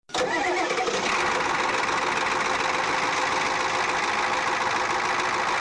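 A loud, steady rushing noise that starts abruptly, with a faint hum under it in the first second.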